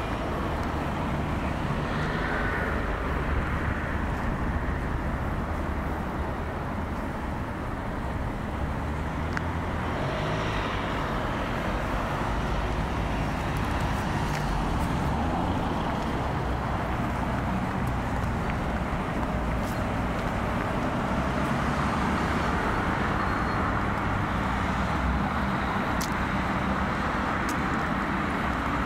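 Steady road traffic noise from cars and vans on the roads nearby.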